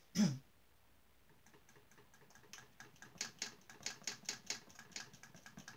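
Oil-paint brush tapping and dabbing against a canvas in quick, uneven strokes, about four or five a second, getting louder about two seconds in. A brief hum of voice comes right at the start.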